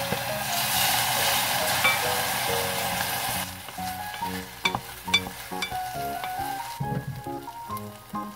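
Loud sizzle as soy sauce hits a hot stainless steel pot of frying fish cakes, easing off after about three and a half seconds. Then a wooden spatula stirs and clicks against the pot over softer frying, with background music.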